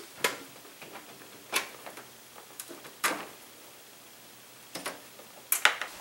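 Cable plugs being pulled out of the rear ports of a desktop computer: several sharp clicks and knocks about a second or so apart, with a quicker cluster near the end.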